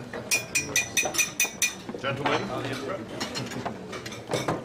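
A drinking glass tapped rapidly with cutlery, about four ringing clinks a second, the usual call for a dinner table's attention before a toast; the tapping stops about two seconds in and indistinct voices follow.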